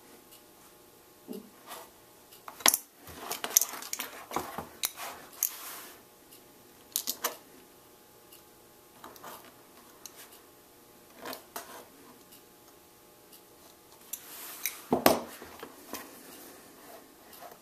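A small knife blade cutting and scraping leather, with scattered sharp clicks and knocks as the heavy leather sheath is handled on the cutting mat; the loudest knocks come about three seconds in and again near the end.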